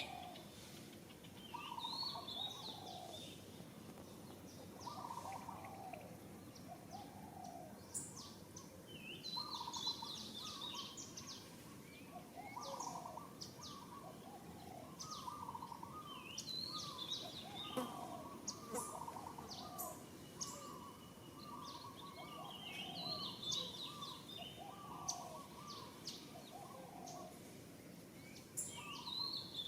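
Birds calling: short phrases of falling whistled notes repeated every second or two, with higher chirps and twitters over them and a faint steady background hiss.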